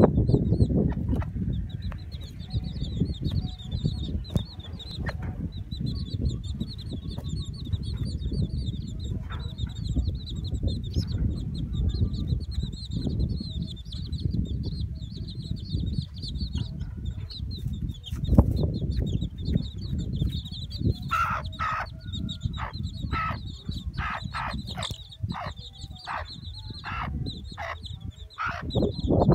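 A flock of chicks peeping continuously in high, overlapping cheeps, while a mother hen clucks in a run of short calls, about two a second, over the last eight seconds or so. A steady low rumble of noise sits under it all.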